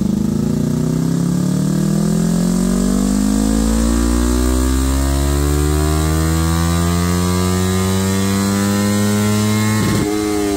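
Yamaha R3's parallel-twin engine breathing through a Graves slip-on muffler, pulling on a chassis dyno with the revs climbing steadily for nearly ten seconds. Near the end the throttle closes and the revs begin to fall.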